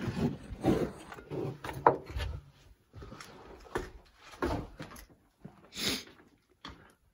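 Footsteps scuffing on a gritty concrete floor in an irregular run, with a sharper knock about two seconds in.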